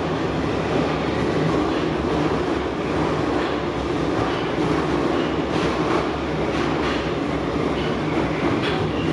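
Kyiv Metro train running between stations, heard from inside the carriage: a steady rumble of wheels on rails, with a few faint clicks past the middle.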